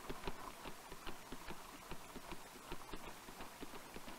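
Faint, steady clip-clop of hooves, a few strikes a second: a horse walking.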